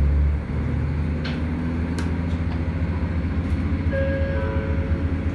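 Diesel railcar pulling away from a station, heard from inside the car: its engine runs with a steady low hum as the train gathers speed. Two short clicks come in the first two seconds, and a faint steady tone sets in near the end.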